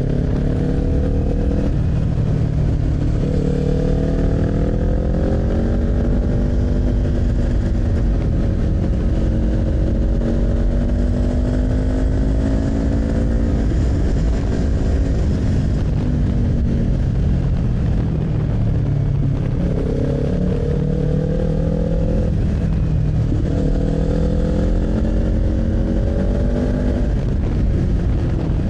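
Kawasaki Z400's parallel-twin engine under way, its pitch climbing and falling several times with throttle and gear changes, over a steady low rush of wind.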